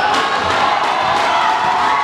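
Crowd of spectators cheering and shouting together at a basketball game, many voices at once.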